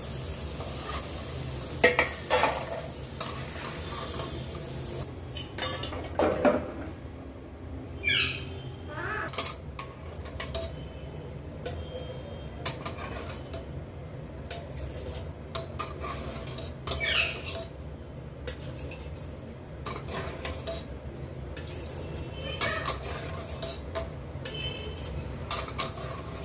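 Steel slotted spoon and ladle scraping and clinking against an aluminium kadai, lifting fried potato fingers out of the oil and scooping some of the oil off. Now and then a scrape squeaks, rising in pitch.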